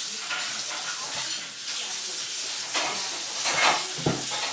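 Steady hiss of background noise, with a short low knock about four seconds in.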